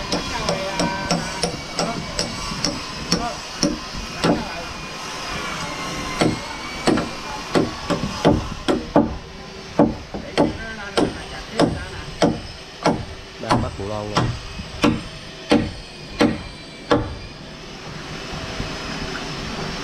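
Hand hammer striking a steel rod to drive it into a wooden beam. Lighter blows at first, then a steady run of heavy strikes about every two-thirds of a second, which stops near the end.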